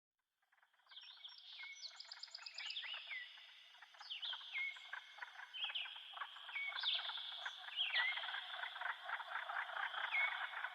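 Birds chirping in a dense chorus of rapid chatter. A whistled call slides down in pitch about once a second, and a quick high trill comes about two seconds in.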